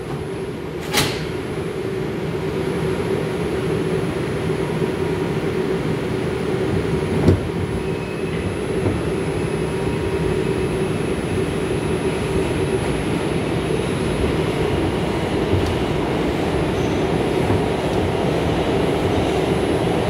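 R142 subway car doors banging shut with a sharp clack about a second in. Then the train pulls out of the station: a steady rumble with a faint hum, slowly growing louder as it picks up speed, with a single knock about seven seconds in.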